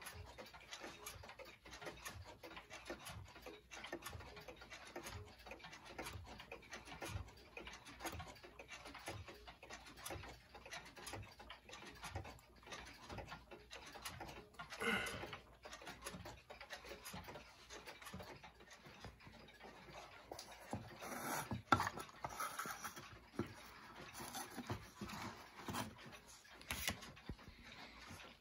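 Faint, steady ticking of clocks in a quiet room, broken by a few louder rustles and knocks of handling near the microphone, about halfway through and again near the end.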